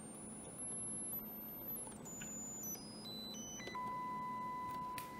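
Faint sine test tone from a loudspeaker driven by a 6J1 low-voltage tube amplifier kit. Its pitch steps as the function generator is retuned: it climbs from about 9 kHz to a very high whistle within the first second, then drops in quick steps to a steady 1 kHz tone about two-thirds of the way in. The tone is barely audible even with the amplifier at full volume, a sign that the kit is barely amplifying.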